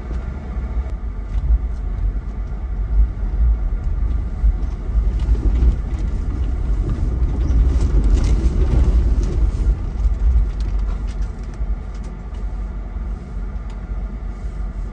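Jeep driving down a snowy, icy trail: a steady low engine and tyre rumble, with scattered small knocks and rattles.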